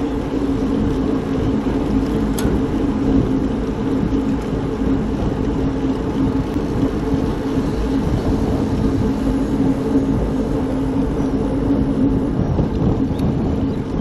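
A vehicle engine running at a steady speed, its hum holding one pitch, over a low rumble of wind and road noise.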